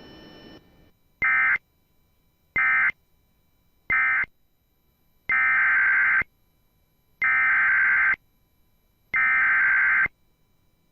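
Emergency Alert System SAME digital data bursts: three short bursts, the end-of-message code closing one warning, then three longer bursts, the header that opens the next warning.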